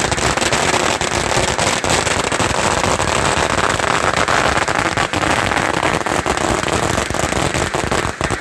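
A long, rapid barrage of firecrackers going off, a dense continuous crackle of sharp bangs that cuts off suddenly near the end.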